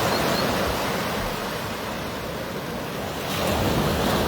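Sea waves washing up on a sandy beach at high tide, a steady surf wash that swells at the start and again about three seconds in, with some wind on the microphone.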